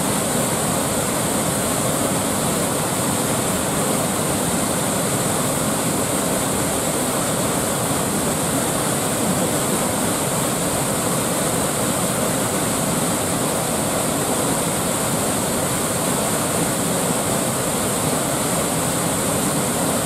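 Sakura Falls pouring: a steady, unbroken rush of white water.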